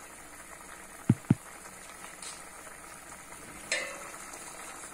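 Tamarind kulambu simmering in a metal pan on a gas burner, bubbling and sizzling steadily. Two quick low knocks come about a second in, and a short metallic clink near the end as the pan's lid is picked up.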